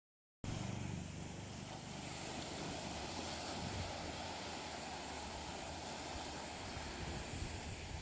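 Small ocean waves breaking and washing up a sandy shore: a steady surf hiss over a fluctuating low rumble of wind on the microphone. It starts about half a second in after a moment of silence.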